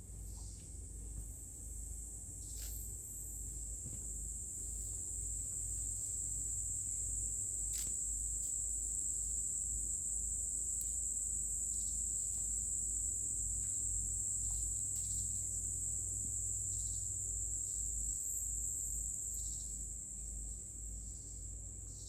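Rainforest insects droning: one steady high-pitched buzz that swells a little in the middle, over a low rumble.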